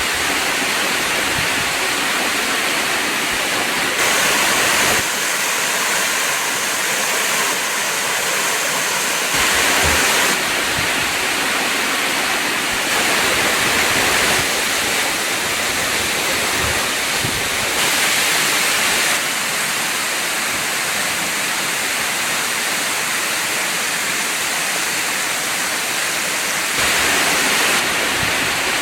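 Waterfall: a steady rush of falling and splashing water. It swells slightly louder for a moment every several seconds.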